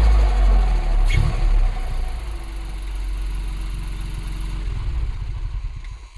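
Ford Fiesta ST mk8's turbocharged 1.5-litre three-cylinder engine with an open direct air intake filter, revved and then released, with a brief turbo flutter about a second in as the throttle closes. It then settles to a steady idle.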